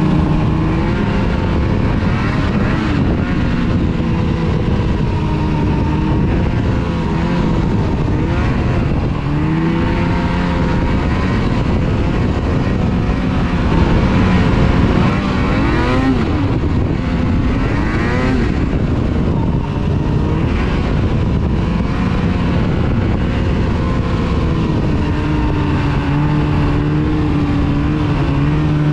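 Snowmobile engine running at trail speed, its pitch rising and falling several times as the throttle is worked, over a steady rushing noise.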